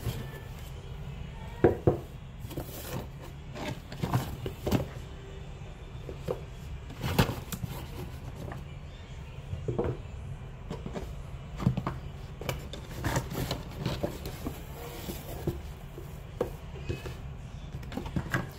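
Irregular knocks, taps and scrapes of small cardboard and plastic watch boxes being lifted out of a cardboard shipping box and set down, the sharpest knocks about two seconds in, over a steady low hum.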